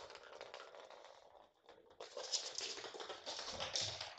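Small toy balls rolling and knocking across a hardwood floor as a kitten bats and chases them, with the patter of its paws: a rattling clatter of many small knocks, louder from about two seconds in.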